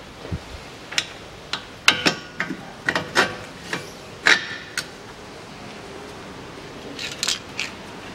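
Irregular metallic clicks and clinks of bolts and tools being handled while the front steering knuckle is bolted to the suspension strut. About a dozen sharp clicks come in the first five seconds, then a quieter stretch, then a short cluster of clicks near the end.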